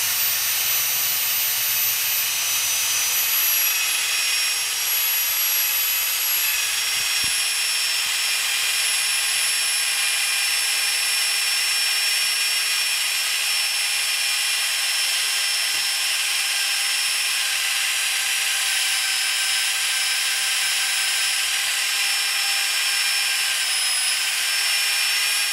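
FE50 magnetic base drill running steadily in its lowest speed setting while an 18 mm high-speed-steel bit slowly bores through 30 mm steel plate: a steady, high motor whine with several held tones that dips slightly in pitch about six seconds in.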